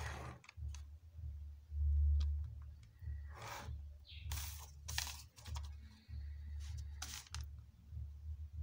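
Graph paper and a plastic ruler being handled on a desk, with a pen scratching as it draws along the ruler: several short scratching and rustling sounds over an uneven low rumble.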